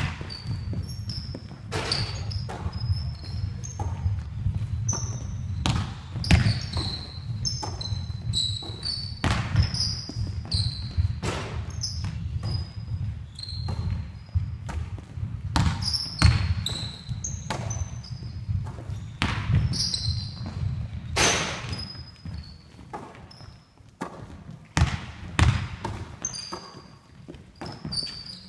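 A basketball bouncing and slapping into hands on a wooden sports-hall floor, in irregular thuds that echo around the hall, with short high squeaks of basketball shoes on the floor scattered throughout.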